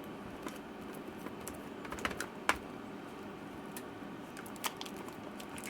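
Light, irregular clicks and taps of plastic and metal parts being handled inside an open MacBook Pro case, over a faint steady hum.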